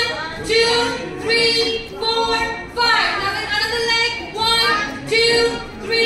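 A woman singing a rhythmic song, with short sung phrases repeating on a steady beat about every three-quarters of a second.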